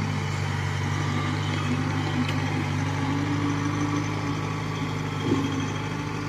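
Diesel engine of a crawler rice combine harvester running steadily under load as the machine crawls up onto the field, its pitch rising slightly midway, with a single knock about five seconds in.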